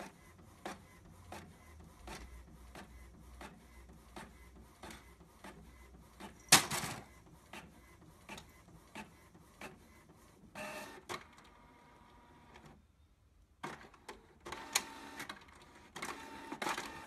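Canon inkjet printer printing pages: a run of regular clicks and ticks from the paper feed and print-head carriage. There is one louder burst about six and a half seconds in, and a short stop around two thirds of the way through before the printer starts again.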